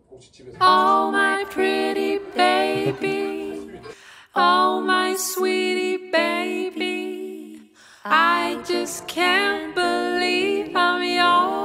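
Background music: a slow melody in three phrases, with short breaks about four and eight seconds in.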